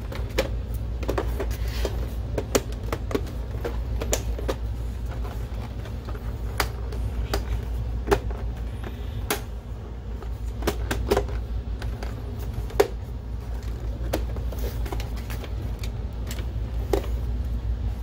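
Plastic housing of a DLP projector being handled: scattered clicks and knocks as the top cover is pressed into place and the unit is turned over and set down, over a steady low hum.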